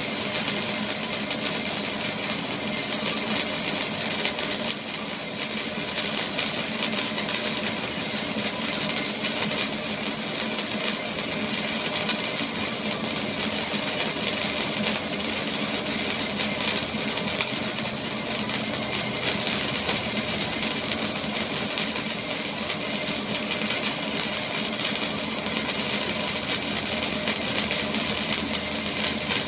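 A machine running steadily with an engine-like hum and a hiss over it, unchanging throughout.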